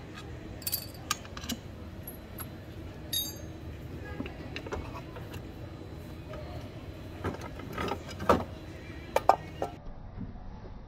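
Scattered clicks, knocks and clatters of a scooter's plastic drive-belt cover being handled and worked loose, over a low steady hum. The sharpest knocks come about eight and nine seconds in.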